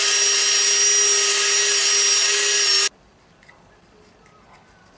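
Cordless drill running at steady speed, its bit grinding out the centre hole of a plastic key-switch housing, with a steady whine that cuts off suddenly about three seconds in. Faint clicks follow as the part is handled.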